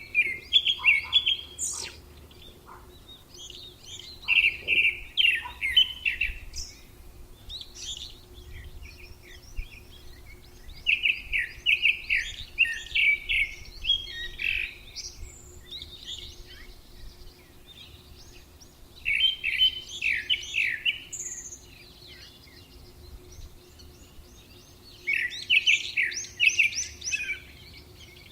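A songbird sings a short phrase of rapid, quickly repeated notes five times, a few seconds apart. Fainter chirps from other birds come in between, over a faint steady hum.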